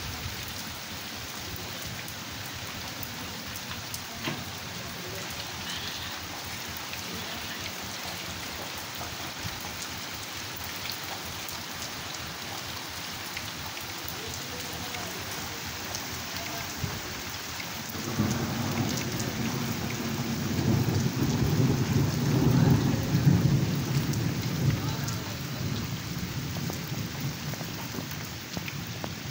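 Heavy rain falling steadily. About two-thirds of the way in, a long roll of thunder swells up and fades away over several seconds.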